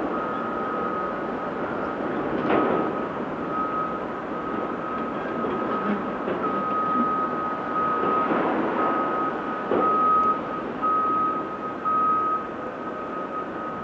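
A heavy earthmover's reversing alarm beeps steadily over the running diesel engines of quarry machinery, with a few knocks and clatters of rock.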